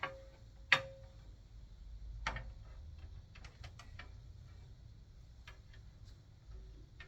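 Scattered light clicks and taps from objects being handled, with no steady rhythm. The loudest is a sharp click just under a second in; smaller ticks follow now and then.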